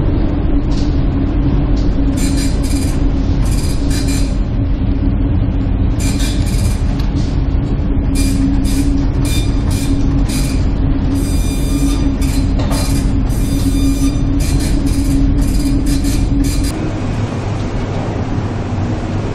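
Container ship in a storm: a steady low drone of engine and hull vibration with a constant hum, overlaid by repeated short, high squealing creaks from the ship's structure and fittings. About seventeen seconds in it changes to an even rush of wind and breaking sea.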